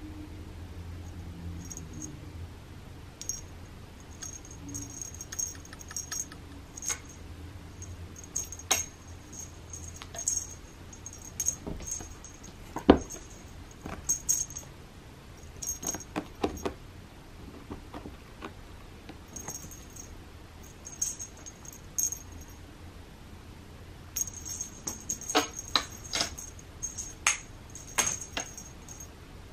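A cat batting and pawing at a string toy on a carpet-covered scratching ramp: irregular taps, scratches and light high clicks, with the sharpest knock about halfway through.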